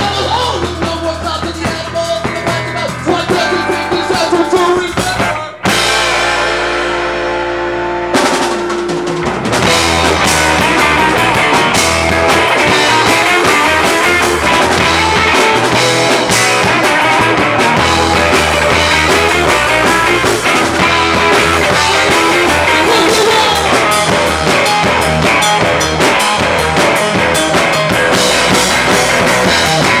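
Live rock band playing guitar and drum kit. About five seconds in the band stops suddenly, leaving a held note ringing, then comes back in a few seconds later with the drums driving steadily.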